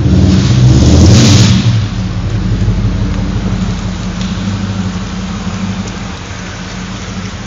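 Supercharged Holden SS Commodore V8 running through a burnout on wet concrete. A loud rushing hiss of spinning tyres and spray peaks in the first second and a half, then the engine's low, steady note carries on as the overall sound eases off.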